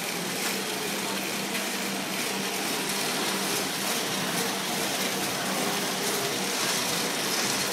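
Airdyne fan bike's fan wheel whooshing steadily as the rider pedals and drives the handles hard in a sprint for maximum calories.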